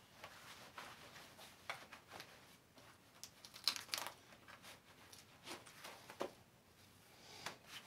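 Faint rustling of shirt and trousers with scattered small clicks and taps as an Alien Gear Shape Shift inside-the-waistband holster is clipped on at the waistband and the shirt is pulled down over it.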